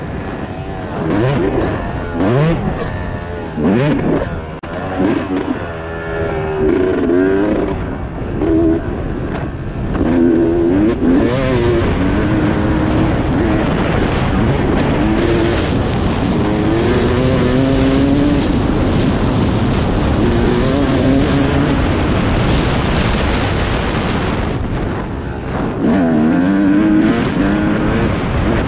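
Dirt bike engine heard from on board, revving up and down through the gears as it is ridden hard along a dirt race track. The revs rise and fall in quick succession at first, then hold more steadily under sustained throttle, dropping and climbing again near the end.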